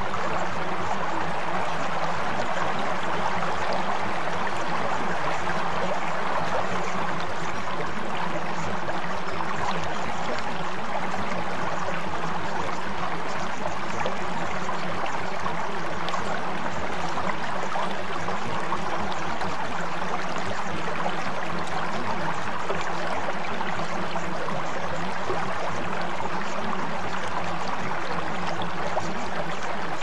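Steady flowing-water ambience, a continuous even rush like a stream, with no change in level.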